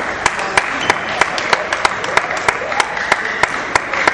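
Steady rhythmic clapping, about three sharp claps a second, over a hum of hall crowd noise.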